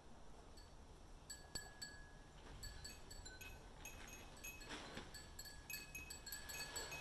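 Several Japanese furin wind bells tinkling in the breeze: short, clear high rings at several pitches, struck at irregular moments and more often in the second half.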